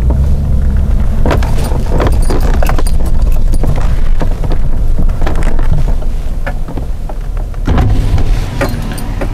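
Chevrolet Silverado pickup rolling in over a dirt and gravel yard: engine running low with tyres crunching and crackling, then pulling to a stop beside the listener near the end.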